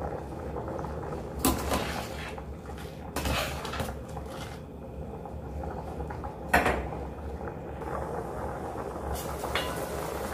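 Macaroni boiling hard in a stainless-steel pot, heard as a steady noise, broken by a few sharp knocks of kitchenware, the loudest about six and a half seconds in.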